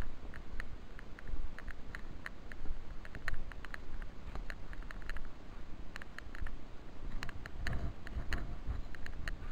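Wind buffeting the camera microphone as a low rumble, with a stronger gust near the end, over irregular light clicks and taps a few times a second.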